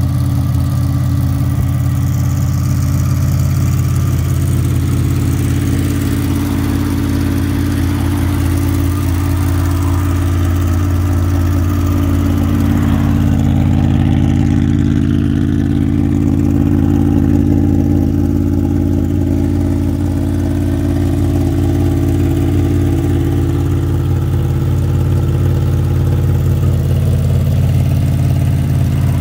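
Honda VFR800's V4 engine idling steadily, with no revving.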